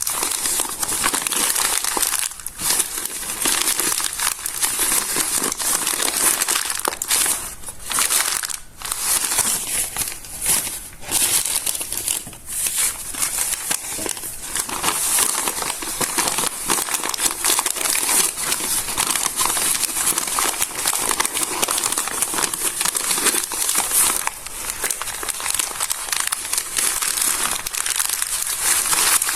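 Stiff, water-damaged notebook pages being handled and smoothed, crinkling and crackling almost continuously, with a few short pauses.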